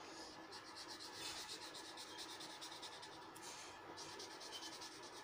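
Felt-tip marker scratching on a sheet of paper in fast back-and-forth strokes, about ten a second, faint, with a short pause a little after three seconds in.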